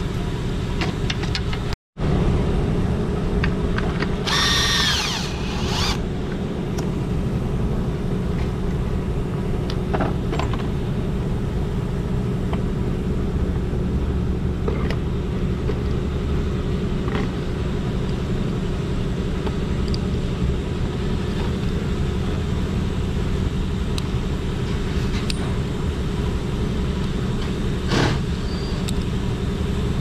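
Air compressor running steadily in the background with a low, even hum, while hands work a rubber intake hose off an engine with scattered light clicks and knocks. A brief high squeak comes about four seconds in.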